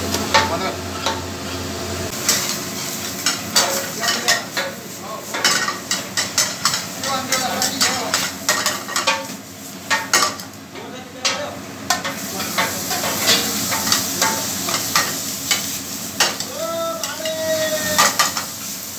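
A metal ladle clinking and scraping against a steel frying pan as food is stirred over a gas burner, with the sizzle of frying underneath. Many short, sharp clinks.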